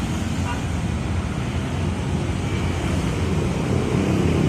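Steady low rumble of street traffic passing on a busy road.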